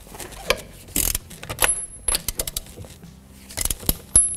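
Metal clicks and clinks of a 21 mm socket and long wrench working on the lug nuts of a car's front wheel as they are loosened, with a short high metallic ring twice.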